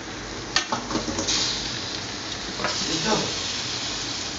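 Cut vegetables tipped from a steel plate into an aluminium pot, knocking and clattering against the metal: a sharp knock about half a second in, then a rattling rush of pieces sliding in and a second clatter around three seconds.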